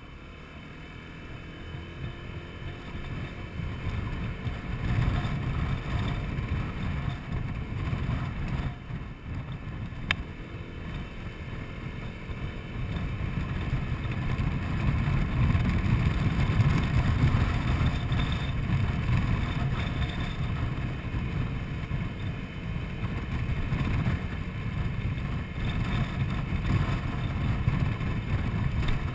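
Honda Forza 125 scooter's single-cylinder engine pulling away from a standstill and then cruising, mixed with wind rushing over the microphone. The noise grows over the first few seconds as speed builds, then stays steady.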